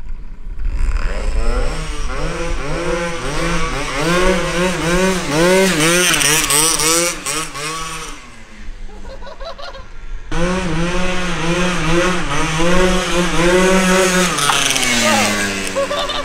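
Two-stroke 120cc stroker Honda Elite scooter engine revving hard, its high-pitched note swelling and dipping about twice a second. The sound falls away about eight seconds in, comes back revving the same way, then drops in pitch near the end as the scooter slows. The carburettor has just been re-jetted, and the riders still find it a little boggy off the line.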